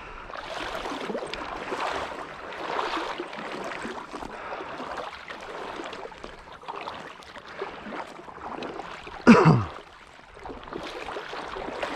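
Water sloshing and splashing as a hunting retriever swims out through the marsh on a retrieve, in uneven surges. About nine seconds in, one loud short shouted call falling in pitch cuts across it.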